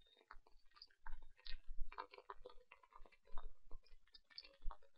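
Computer keyboard and mouse being used: faint, irregular clicks and taps, some with a soft low thud.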